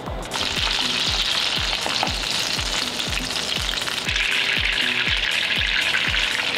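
Butter sizzling as it melts and foams in a hot frying pan, growing louder about four seconds in. Background music with a steady beat plays underneath.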